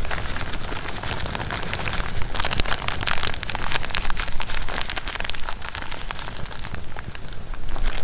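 Granulated sugar poured from a bag into a cast-iron Dutch oven of simmering azuki beans: a steady hissing patter of falling grains, densest a couple of seconds in and thinning near the end.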